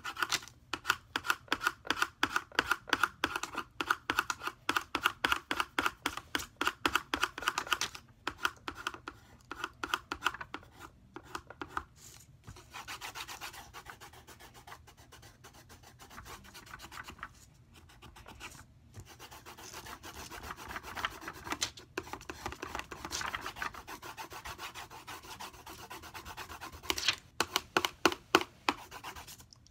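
Colored pencil shading on paper in rapid back-and-forth strokes, a dry scratching rasp. About twelve seconds in the strokes turn softer and more even, then near the end they come quick and hard again.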